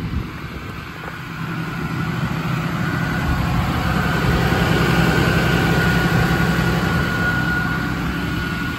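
A Ram 5500's 6.7-litre Cummins inline-six turbo-diesel idling: a steady low hum with a thin high whine above it, growing louder toward the middle.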